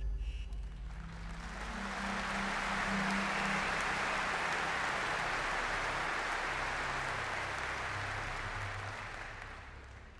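Large audience applauding. The applause swells about a second in, holds steady, and fades away near the end.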